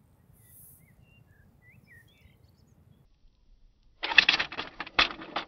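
3D-printed PLA catapult with leaf springs firing about four seconds in: a loud plastic clatter as the throwing arm is released and snaps forward, then two more sharp clacks about a second apart. Before it, a few faint bird chirps.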